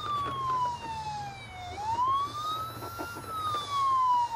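Toy ambulance's electronic siren wailing: a single clean tone that glides slowly up and then down, rising and falling about twice.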